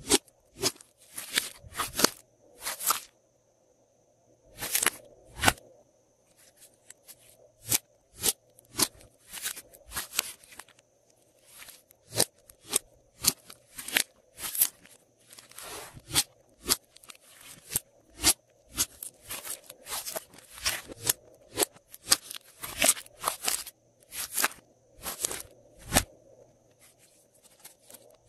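Glossy slime being pressed, folded and squeezed by hand, giving an irregular run of sharp crackling pops and squelches as air pockets in it burst, a few a second with short lulls.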